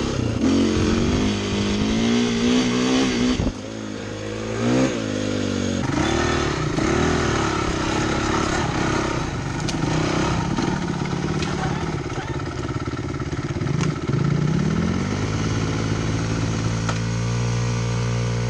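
Dirt bike engine heard from on board, revving up and down as it rides the trail. Near the end it settles to a steady low-rev run.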